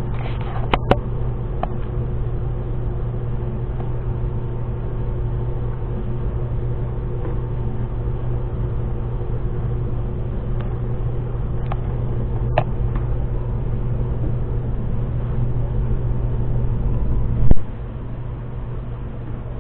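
Steady low mechanical hum with a few light clicks and taps as rubber trim is worked onto a metal windshield frame, and one loud knock near the end.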